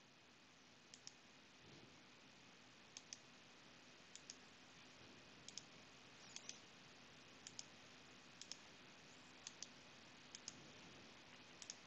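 Faint computer mouse clicks, about a dozen spread over near silence, many coming in quick pairs.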